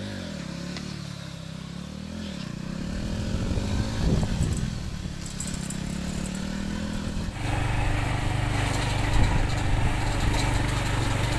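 Motorcycle engine running while riding a rough road, its pitch rising and falling with the throttle. About seven seconds in it gives way to a steadier, louder engine note over a hiss.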